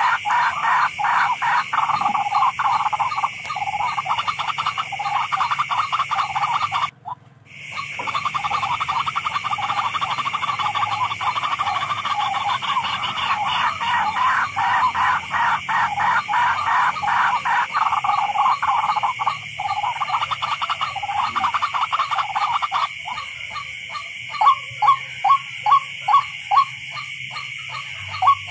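Rail calling, the bird known in the Philippines as tikling: long runs of fast, rapidly repeated pulsed notes over a steady high hiss. Near the end the notes come louder and more spaced, about two a second.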